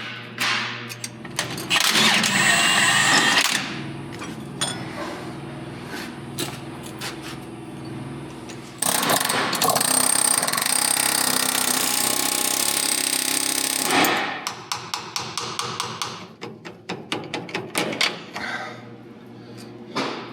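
Pneumatic air chisel hammering on steel in two bursts, a short one about two seconds in and a longer one of about five seconds in the middle, working an old seal out of a tractor's drive housing. Scattered metal clinks and taps fill the gaps between bursts.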